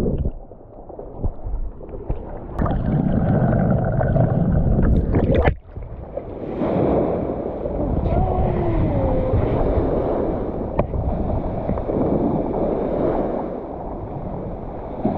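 Water washing and wind rumbling on the microphone, changing abruptly just after the start and about five and a half seconds in.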